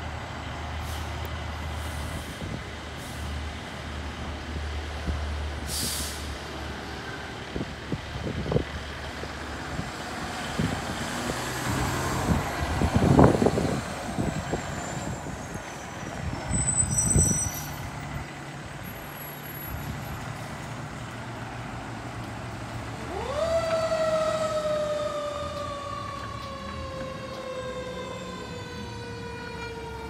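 Fire engine's diesel running as it pulls out and drives off, with a couple of loud air-brake hisses around the middle. About three-quarters of the way through its siren winds up quickly and then slowly falls away in a long wail.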